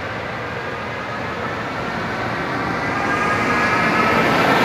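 Trenitalia electric locomotive drawing slowly alongside the platform and passing close, its electric drive whining as several tones that sink slightly in pitch, over a rumble that grows louder as it nears.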